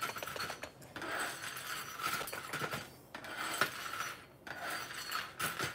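Two metal print-scraper blades chopping and scraping through a pile of small 3D-printed plastic bits on a flexible steel print bed: an irregular run of clicks, rattles and scrapes of metal against plastic and plate.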